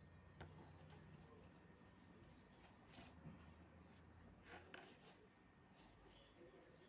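Near silence: room tone with a few faint clicks and light rustles.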